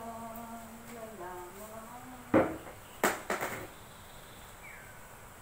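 A woman humming a tune in long held, slowly bending notes, stopping about two seconds in. A loud knock follows, then a short clatter of knocks about a second later.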